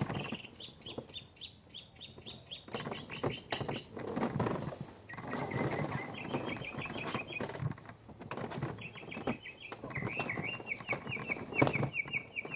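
A songbird singing phrases of rapid repeated chirps, about six to eight a second, several times over. Scattered knocks and scuffs run underneath, with one sharper knock near the end.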